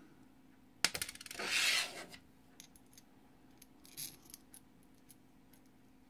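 Small metal wavy washer handled and fitted onto the threaded steel stem of a metal adjustment knob: a sharp click a little under a second in, a short scraping rub just after, then a few faint ticks.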